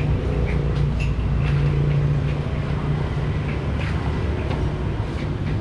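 Steady low rumble of street traffic, with a few light clicks of xiangqi pieces on the wooden board.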